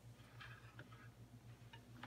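Near silence: a faint low hum and a few faint, uneven clicks.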